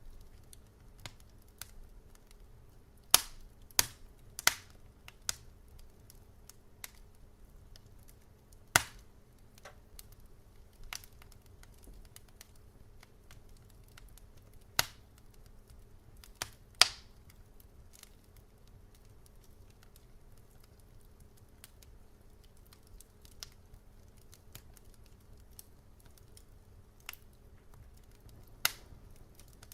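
Wood fire crackling in a fireplace: irregular sharp pops and snaps, a few much louder than the rest, over a faint steady low rumble.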